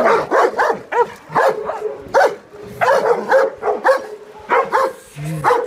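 Dogs in a fight, a pit bull against a German shepherd, barking in rapid runs of short barks with brief pauses between them.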